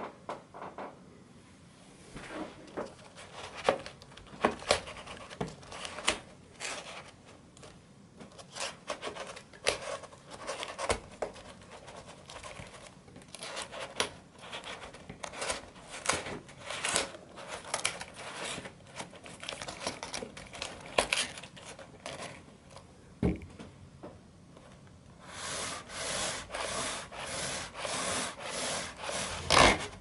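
Folded cardstock wheels of an origami combination lock rubbing and clicking as they are turned by hand. Near the end comes a run of rubbing strokes, about two a second, then a sharp knock as the cardstock box is tipped over onto the table.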